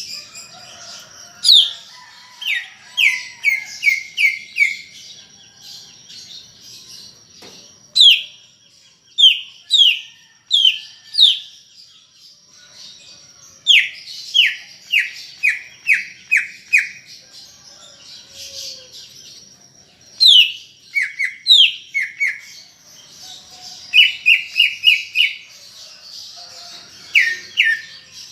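Cucak ijo (greater green leafbird) singing loudly: quick runs of four to six down-slurred whistles, repeated every few seconds, mixed with sharp high chips.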